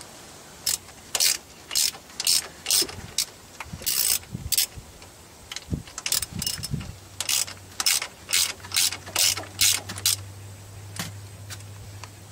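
Socket ratchet wrench clicking in short bursts, about two strokes a second, as it backs out the rocker shaft bolts on a Cummins ISX diesel. The clicking stops near the end.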